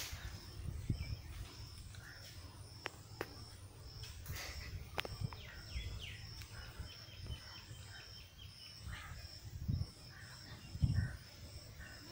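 Quiet outdoor ambience: a low rumble underneath, a steady high-pitched chirp pulsing about twice a second, and scattered short animal calls, with a few sharp clicks.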